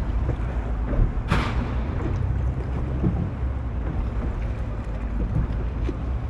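Wind rushing over the microphone on a boat on the water, over a steady low rumble, with one brief louder gust or splash about a second in.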